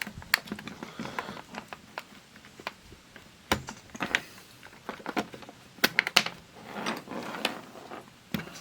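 Irregular light clicks and taps of the opened digital multimeter's plastic parts being handled, a few sharper knocks among them.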